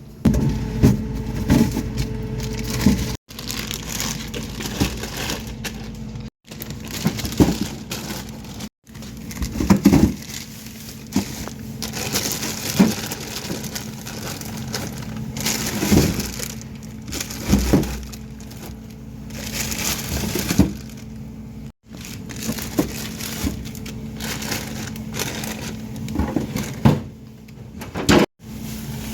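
Plastic bags of portioned meat being handled and packed into a refrigerator: irregular crinkling of plastic with knocks and bumps, over a steady low hum.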